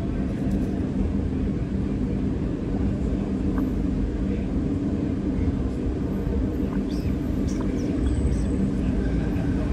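Steady low rumble of outdoor street background noise, like distant traffic or an engine running, with a few faint ticks.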